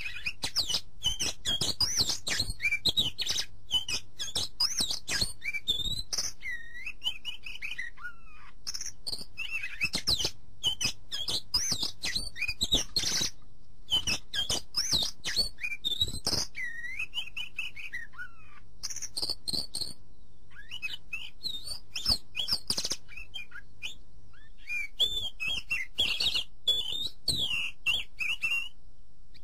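Songbirds chirping and whistling in quick, varied phrases, with brief pauses between runs, over a faint steady low hum.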